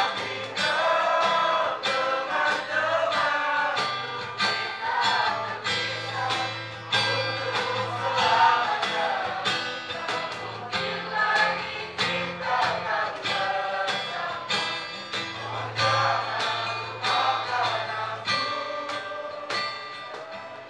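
A high-school choir singing together into microphones, accompanied by guitar over a steady beat of about two to three strokes a second. The song ends near the end.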